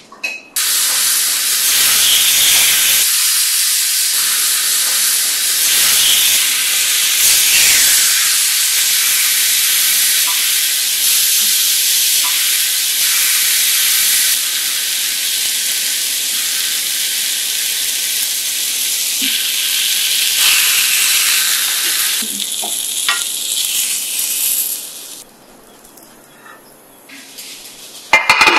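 Marinated chicken sizzling loudly on a hot cast-iron grill pan, a steady hiss with a few faint clicks, which stops about 25 seconds in. A brief loud clatter comes near the end.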